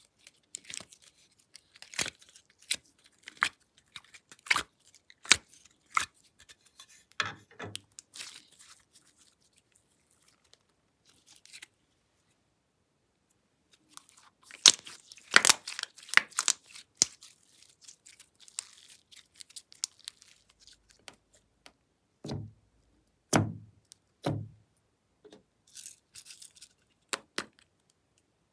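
Purple glossy slime being squeezed out of a plastic container and kneaded by hand, making sharp sticky clicks and pops. There is a quiet stretch about halfway through, and a few duller low thumps near the end.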